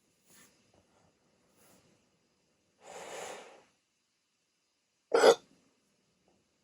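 A person with hiccups: one sharp, short hiccup about five seconds in, the loudest sound, preceded by a longer breathy sound a couple of seconds earlier and faint breaths before that.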